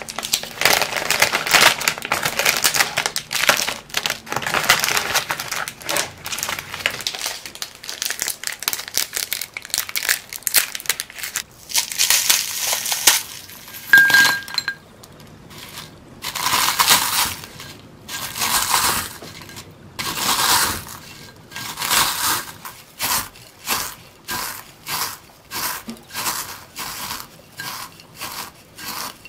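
Plastic wrappers of Bourbon Lumonde crisp wafer sticks crinkling as they are unwrapped over a glass bowl, with a brief clink on the glass about halfway through. Then a metal potato masher crushes the wafers against the glass bowl in repeated crunching strokes that come faster near the end.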